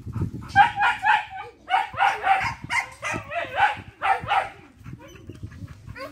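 Dogs barking: a rapid run of short barks, two or three a second, that eases off near the end.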